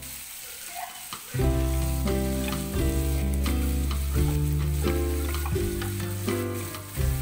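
Shrimp sizzling as they fry in butter and oil in a pan, with occasional light clicks of metal tongs turning them. Background music with a strong bass line comes in about a second and a half in and is the loudest sound from then on.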